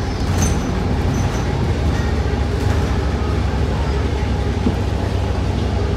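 Ride aboard a New Flyer XDE40 diesel-electric hybrid transit bus, heard from inside the cabin: a steady low rumble of the bus running.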